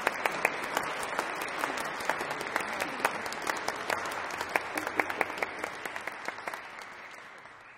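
Audience applauding, a dense patter of clapping that thins and fades out near the end.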